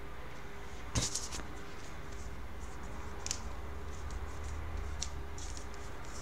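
Trading cards being handled by hand: a sharp tap about a second in, then light scratchy sliding sounds as the cards rub against each other and are worked between the fingers.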